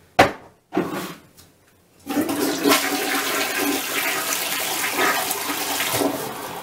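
Two sharp knocks near the start, then a toilet flushing from about two seconds in: water rushes from under the rim and swirls noisily down the bowl.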